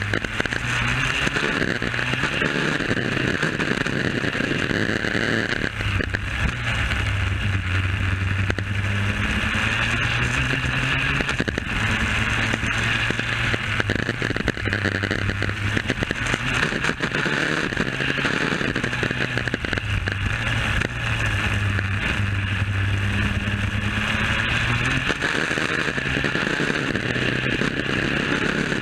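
Superkart's two-stroke engine under way, heard onboard, its revs climbing and dropping again and again as the kart accelerates and slows through the lap.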